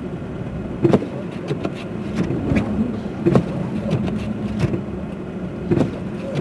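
Car driving through heavy snow, heard from inside the cabin: a steady engine hum and road noise, with a sharp thump about every two and a half seconds and smaller knocks in between.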